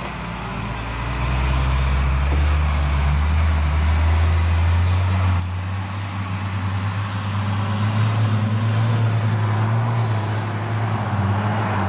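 Lime spreader truck's engine running steadily, growing louder over the first couple of seconds; the engine note changes abruptly about halfway through.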